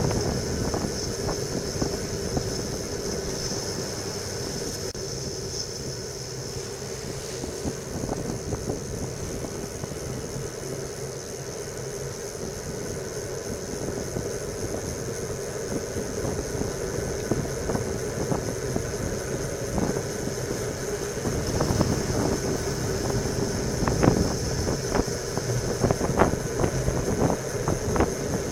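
Wind rushing over a bike-mounted camera's microphone with tyre and road noise from a road bicycle descending at speed. Sharp knocks and rattles come through more often in the last several seconds.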